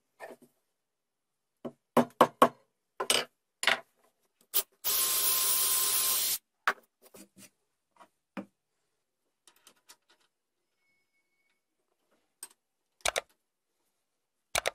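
Knocks and taps of hand tools on a wooden workbench, then about a second and a half of a cordless drill boring a centre hole into a chestnut wood blank, with a steady motor whine under the noise; a few more knocks near the end.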